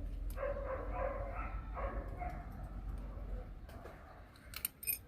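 A dog whining and yelping in the background for a few seconds, then several sharp clicks near the end.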